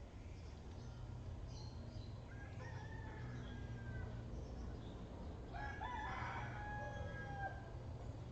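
A rooster crowing twice: a fainter crow about two and a half seconds in, and a louder one near six seconds. A steady low hum runs underneath.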